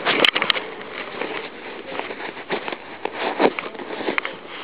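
Skis running through deep powder snow: a steady hiss broken by irregular crackles and knocks.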